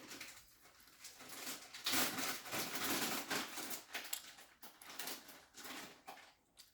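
Soft, irregular rustling and handling noises, loudest about two seconds in.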